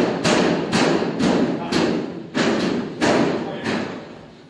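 Hand-pulled noodle dough being slapped onto steel worktables while it is stretched: a quick run of thuds, about three a second, that dies away about three seconds in.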